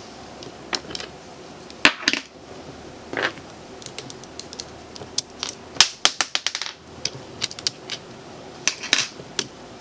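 Sharp metal clicks and small scrapes as a steel pick pries a retaining clip off the SDS-plus chuck of a Makita DHR202 cordless rotary hammer and its washers are lifted off. The clicks come singly, with a quick run of them about six seconds in.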